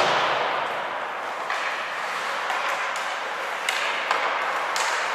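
Ice hockey play in a rink: a sharp crack with a ringing tail at the start, from puck or stick striking the boards or glass, then three more sharp clacks of sticks and puck near the end, over a steady arena hiss.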